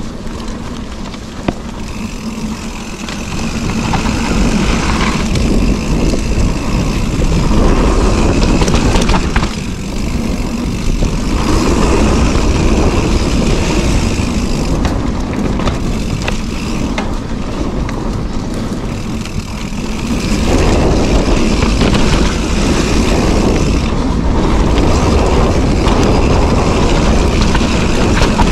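Mountain bike descending a dirt singletrack: wind rushing over the microphone and the tyres rolling on packed dirt, growing louder as speed picks up a few seconds in and again later.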